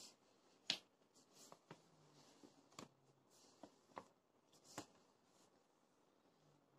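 Faint ticks and taps of a pen and hand working on paper on a table: about seven or eight short clicks over the first five seconds, the sharpest about three-quarters of a second in.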